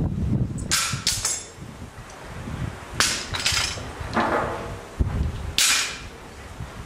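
Metal clamps being taken off a glued plywood lamination and set down: three short clinking rattles a second or two apart, with a sharp knock between the last two.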